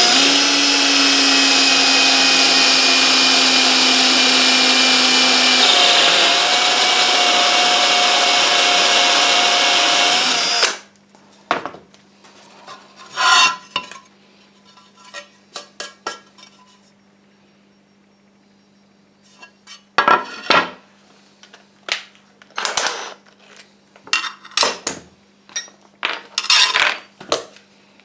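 Power drill with a spear-point tile bit boring through a ceramic tile, the motor running steadily for about ten seconds. Its note shifts about six seconds in, and then it stops abruptly. After that come scattered short knocks and scrapes.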